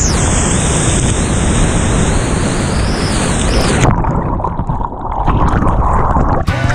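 Loud crashing and rushing of a big whitewater rapid as the canoe punches through a breaking wave. About four seconds in, the sound turns dull and muffled as the camera goes under the water.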